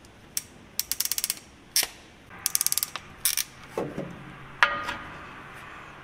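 Ratcheting wire crimper closing on a blue heat-shrink butt connector that joins two wires: quick runs of ratchet clicks about a second in and again near the middle, with single clicks between and a louder sharp click a little before the end.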